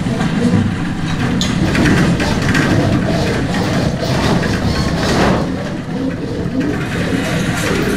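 Earthquake simulator shaking at full strength: a loud, continuous deep rumble with rattling and crashing noise, swelling into a louder surge around five seconds in.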